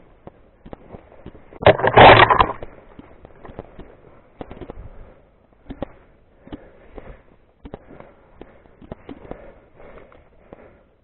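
Leaves and branches crackling and scraping against the camera as the wearer pushes through brush, loudest for under a second about two seconds in. This is followed by scattered footsteps and light clicks on rock and dry ground.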